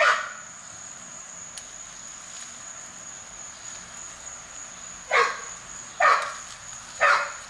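A steady high-pitched insect trill, typical of crickets, runs throughout. A dog barks once at the start and then three times about a second apart near the end.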